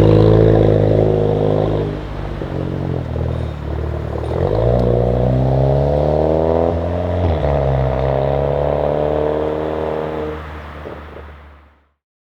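Modified Seat Leon Cupra ST 5F's turbocharged four-cylinder engine through a custom exhaust, accelerating hard: its pitch climbs and drops back three times, then the sound fades away near the end.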